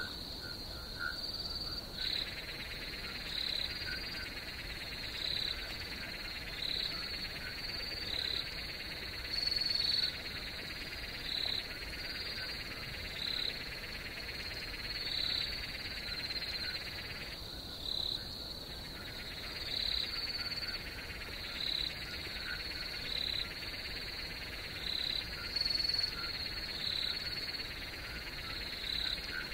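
Night chorus of insects and frogs: a steady high trill under a call repeating a little over once a second. A denser chorus enters about two seconds in and drops out briefly a little past halfway.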